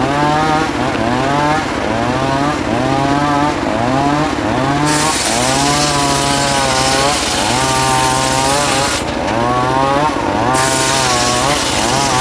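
Homemade circular saw ripping a rain tree plank, its drive motor's note sagging and recovering about once a second as the blade takes the load. A hiss of the blade cutting wood joins about five seconds in, breaks off briefly near nine seconds and comes back.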